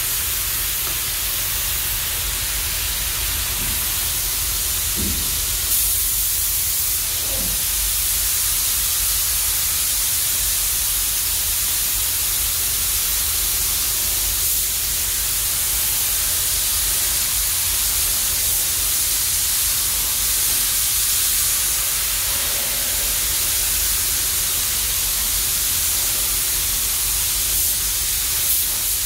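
Compressed-air paint spray guns hissing steadily as paint is sprayed onto a vehicle body, over the low steady rumble of the spray booth's ventilation. The hiss starts at once as the spraying begins.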